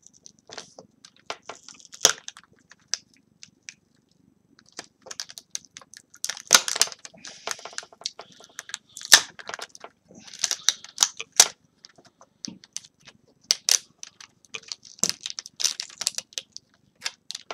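Irregular small clicks, taps and short scratchy rustles from fingers and a slim metal tool working at a laptop LCD panel's display-cable connector: lifting the tape that holds the connector and working the connector loose.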